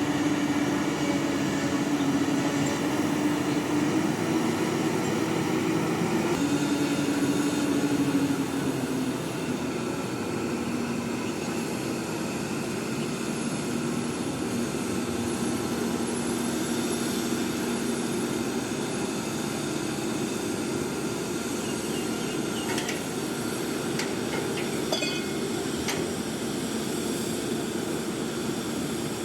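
A mobile crane's diesel engine running steadily under load. About eight seconds in, its pitch and level drop as the engine slows, and then it runs on at the lower speed.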